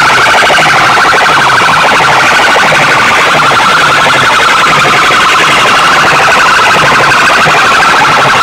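Stacks of horn loudspeakers from rival DJ sound systems blasting at full volume at once: a shrill, rapidly warbling tone over a repeating low beat, distorted and overloaded.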